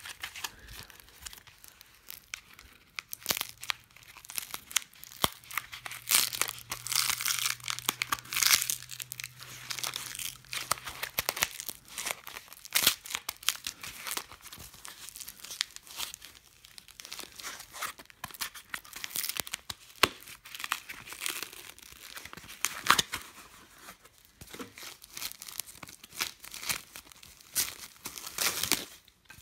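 Clear plastic wrapping crinkling and tearing as it is pulled off wooden chair parts, in quick, irregular rustles and rips.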